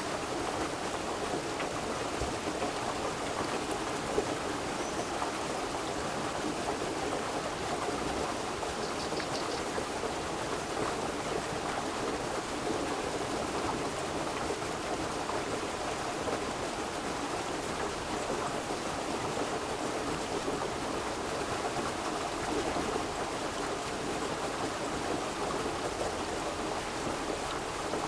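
Steady running water: an even, unbroken rushing hiss with no change in level.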